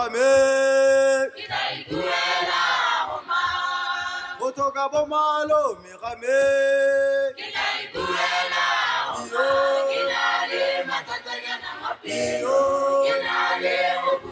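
Vocal music: voices singing long held notes with short glides between them, in a choir-like sound.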